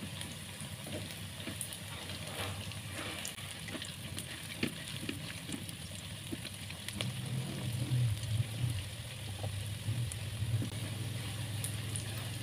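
Tempe frying in hot oil in a pan: a steady sizzle with scattered small pops and crackles, the pieces starting to dry out and nearly ready to lift. A low hum comes in about seven seconds in.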